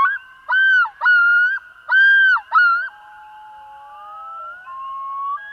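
Recorded common loon yodel: a run of loud, repeated arching notes that swoop up and drop sharply, followed by softer, longer rising notes near the end.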